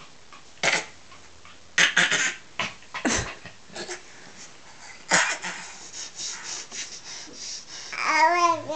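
Baby making short breathy, snorting and panting noises in separate bursts, then near the end a wavering, warbling vocal squeal.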